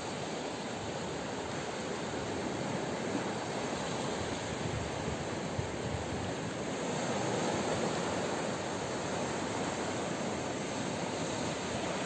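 Sea surf: small waves breaking and washing up over the sand in a steady rushing wash, swelling a little about two-thirds of the way through.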